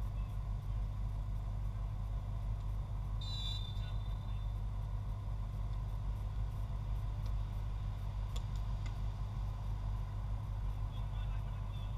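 Steady low rumble of outdoor background noise, with a short, high, fluttering whistle blast about three seconds in: a referee's pea whistle.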